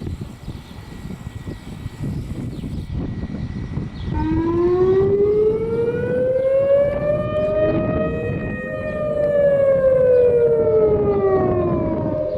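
A low rumble for about four seconds, then civil defense warning sirens sounding in an emergency alert system test. Each siren gives a wailing tone that rises slowly and then falls, and a second siren overlaps it at a slightly different pitch.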